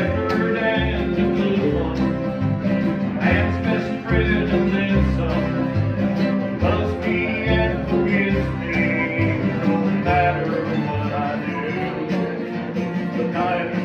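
Acoustic bluegrass jam playing: guitar and other plucked strings over a steady, regularly pulsing bass line.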